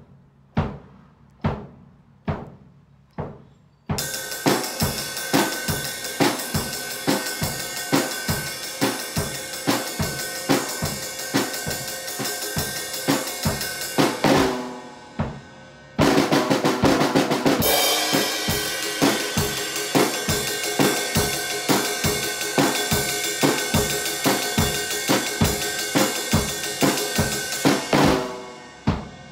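Drum kit solo in a quintuplet swing feel, with bass drum, snare and cymbals. It opens with a few evenly spaced single strikes, and the full kit comes in about four seconds in. Around halfway the playing stops for a moment and a cymbal rings out, then the full kit starts again and fades away near the end.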